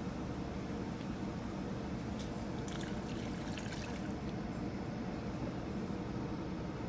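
Water poured from a small plastic cup into a wok of diced bacon boiling in water, partway through, over a steady background of the boiling pot.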